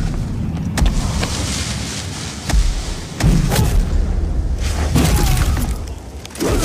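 Fight-scene sound effects: a deep booming bass rumble with sharp impact hits, one a little under a second in, others around two and a half and three and a half seconds, and a loud one at the end.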